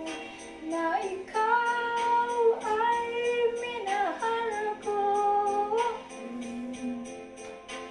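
A woman humming a slow wordless melody in long held notes that glide from one to the next, over a backing track with a steady light percussion beat; the humming stops about six seconds in, leaving the backing track.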